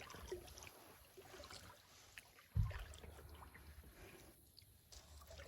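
Kayak paddling: faint trickling and dripping of water off the paddle blades, with a single low thump about two and a half seconds in.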